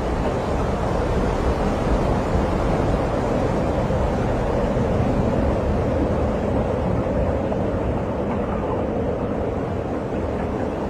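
Tornado winds blowing hard and steadily, the gusts buffeting the phone's microphone into a loud, low rumble with no let-up.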